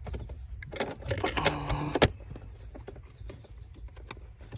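A Toyota Highlander's plastic cabin air filter cover being pushed into the filter housing by hand: plastic rattling and scraping, then a sharp click about two seconds in, followed by a few lighter taps.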